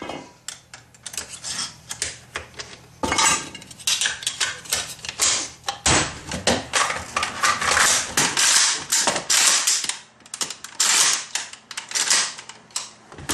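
AK-47 being taken apart by hand: a quick, irregular run of metal clicks, clacks and rattles as its parts are worked loose and set down on the workbench.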